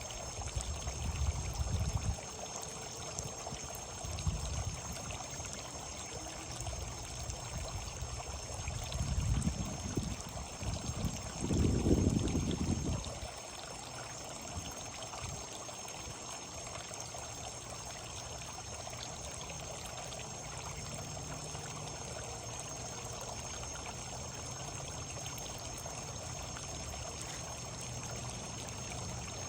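Steady trickling, running water with a few low rumbles, the loudest about twelve seconds in.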